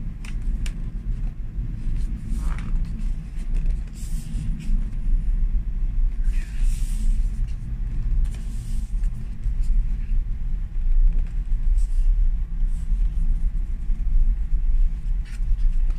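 A steady low hum throughout, with a few soft scraping rustles of a cardboard box being turned and handled, about four, six and a half and eight and a half seconds in.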